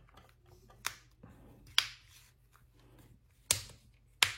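Plastic back cover of a Realme C21 phone being pried off by fingernail or thin tool, its snap-fit clips releasing in four sharp clicks, the loudest about three and a half seconds in.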